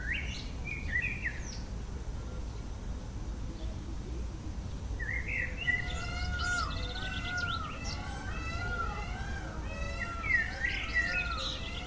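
Several birds chirping and calling over one another: a few short chirps at first, then a dense, overlapping chorus from about five seconds in, over a steady low background rumble.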